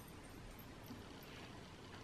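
Near silence: quiet room tone with a couple of faint soft rustles.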